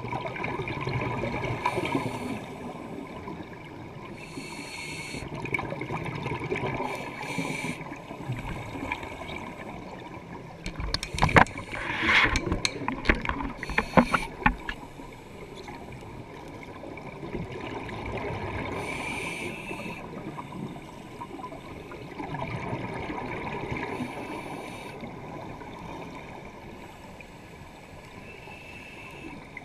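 A scuba diver's regulator breathing underwater: short hissing inhalations every few seconds, and a loud spell of crackling, bubbling exhalation from about eleven to fourteen seconds in.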